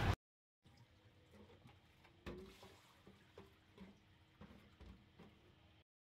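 Very quiet sound with a few light taps and drips, the clearest a little over two seconds in: a Toyota transmission oil pan being lowered, dripping transmission fluid.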